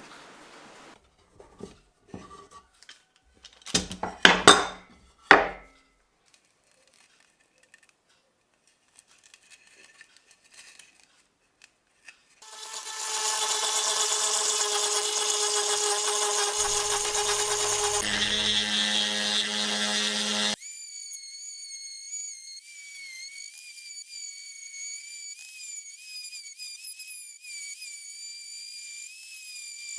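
Workshop tool sounds: several sharp knocks and clatter of metal parts being handled, then a power tool running steadily with a whine for about eight seconds, followed by a quieter, high wavering whine.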